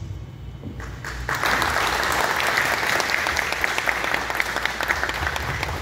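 Audience applauding: clapping starts about a second in, quickly swells and then holds steady.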